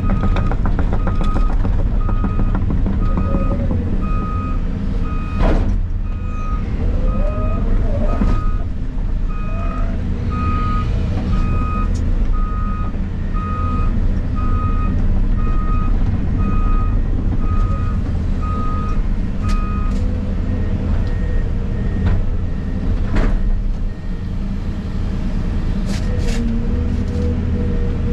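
Volvo excavator's diesel engine running steadily, with a backup alarm beeping about once a second until about two-thirds of the way through, when it stops. A few sharp knocks cut through the engine sound.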